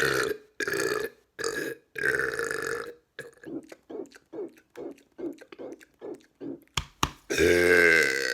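A man burping: a long burp dies away just after the start, a few shorter burps follow, then a rapid string of short burps. Near the end comes one long, loud, deep burp.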